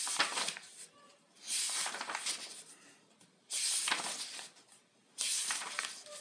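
Paper pages of a paperback question book being turned by hand: four page turns, each a brief rustle, about one and a half to two seconds apart.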